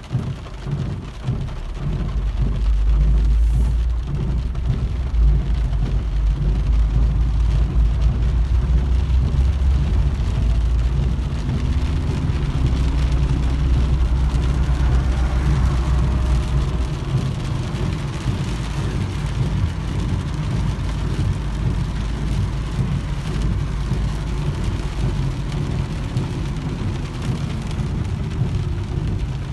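Heavy rain falling steadily. A deep low rumble runs under it for roughly the first half and then stops.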